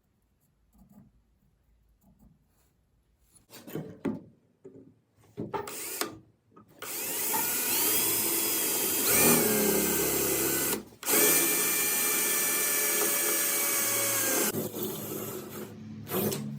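Electric drill boring a hole through the Jeep's metal windshield frame for a latch screw. A few clicks of handling, then about halfway in the drill spins up to a steady whine, stops for a moment, and runs again for a few seconds before stopping.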